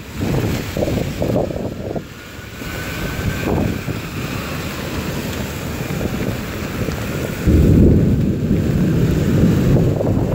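Gusty wind buffeting the microphone in a heavy thunderstorm, over rain and cars passing on a wet street. A louder, deeper rumble sets in sharply about seven and a half seconds in.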